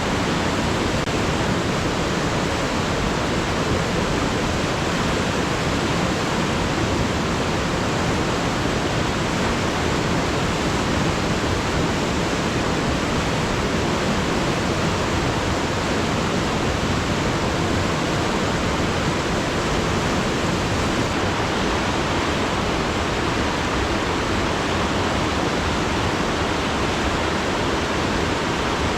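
Alpine river flowing: a steady, unbroken rush of water.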